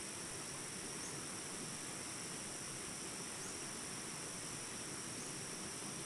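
Steady insect chorus: an unbroken high-pitched shrill at two pitches that holds at the same level throughout.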